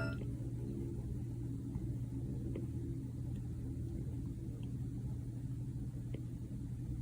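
Low steady hum with a few faint, short ticks scattered through it.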